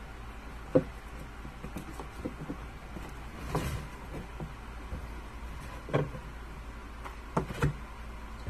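Scattered light knocks and taps from handling a glass-paneled picture-frame lantern while hot-gluing its corners, the sharpest a little under a second in. A steady electric fan hum runs underneath.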